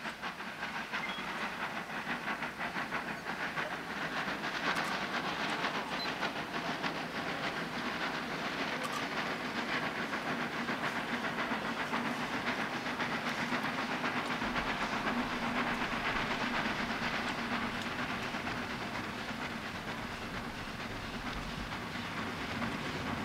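National Railways of Zimbabwe Garratt steam locomotive working hard as it approaches, its exhaust beating out rapid, even chuffs with a hiss of steam. It grows louder over the first few seconds, then holds steady.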